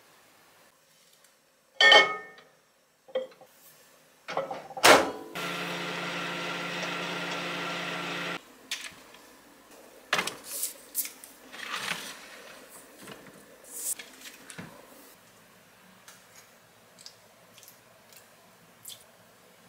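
Microwave oven being shut and started, with two loud knocks about two and five seconds in, then the microwave's steady electric hum for about three seconds before it cuts off suddenly. After that come light clinks and knocks of bottles being handled from a shelf and set down.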